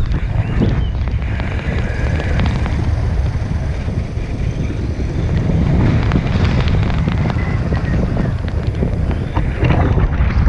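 Wind rushing over the microphone of a camera carried on a tandem paraglider in flight, a steady loud roar through a banking turn.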